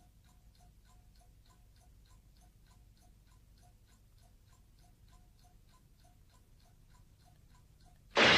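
Faint, even clock ticking, about three ticks a second, in a quiet room. Right at the end a sudden loud burst of music breaks in.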